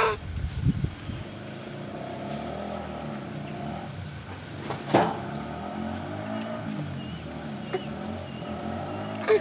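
A motor engine runs in the background, its pitch drifting up and down, with a few sharp knocks: a loud one about five seconds in and another near the end.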